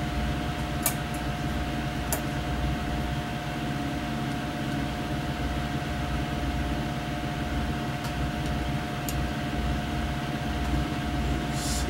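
A fan running steadily, a constant hum with a faint steady whine, and a few faint clicks of small engine parts being handled as a carburetor and its linkage are fitted to a small Briggs & Stratton engine.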